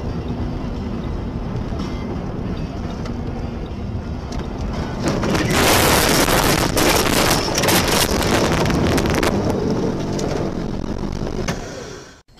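Car cabin noise while driving a snowy road, then, about five seconds in, a loud rough rush of crashing and scraping for about four seconds as the car ploughs off the road into snow and trees. It then eases off and cuts out just before the end.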